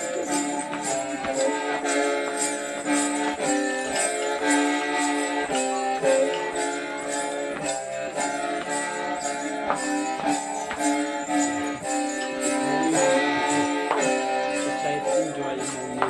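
Background music with a steady beat and sustained melodic tones.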